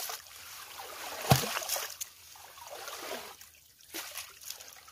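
Water splashing and trickling as a wet fine-mesh drag net holding small fish is pulled and gathered by hand, with one sharp thump a little over a second in.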